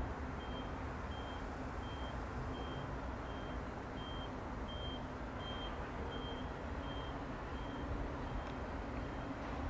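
Low steady rumble of a distant ČD Pendolino electric train approaching, with a high electronic beeping repeating about one and a half times a second that stops about eight seconds in.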